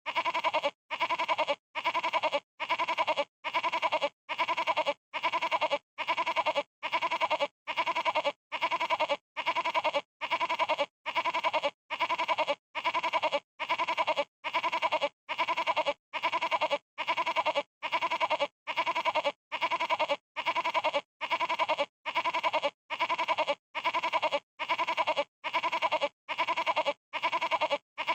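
Goat bleating a stuttering, quavering baa, the same call repeated over and over at an even pace, about three bleats every two seconds with short gaps between.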